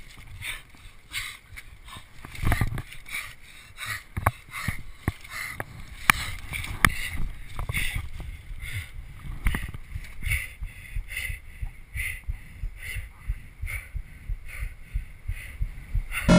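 Camcorder microphone picking up irregular crackling and knocking as the camera is handled close to the ground, over a low rumble, ending in a short loud burst.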